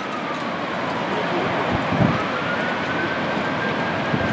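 A faint siren wailing slowly, sliding down in pitch and then back up about two seconds in, over a steady outdoor rush of wind on the microphone and city noise. There is a soft knock about two seconds in.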